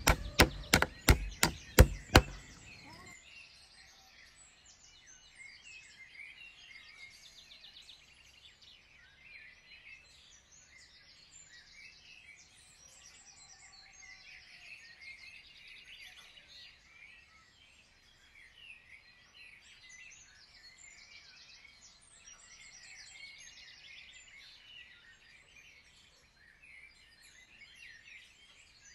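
A quick run of sharp knocks for about two seconds, then many small birds chirping and singing faintly for the rest of the time.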